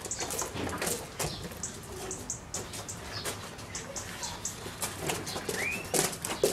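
Footsteps crunching on gravel as people walk about, with small birds chirping in the background.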